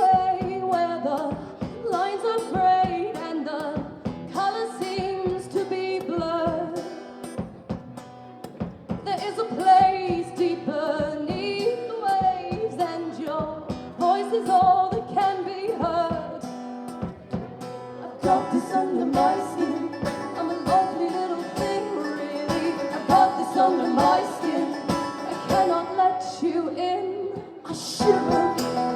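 A song performed live: women's voices singing a melody over strummed acoustic guitar.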